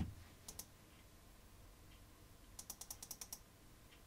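Faint clicks of a computer keyboard and mouse: a pair of clicks about half a second in, then a quick run of about nine clicks near the end.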